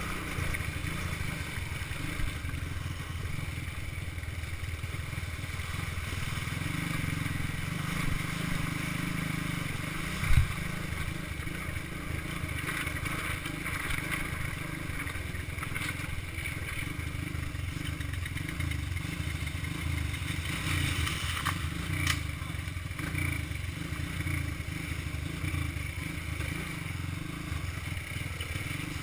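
All-terrain vehicle's single-cylinder engine running steadily while riding over loose creek-bed rocks, with stones clattering and scraping underneath and one hard knock about ten seconds in.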